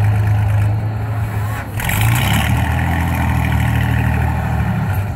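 Doodlebug pulling vehicle's engine running loud and steady, with a short dip about a second and a half in before it picks up again.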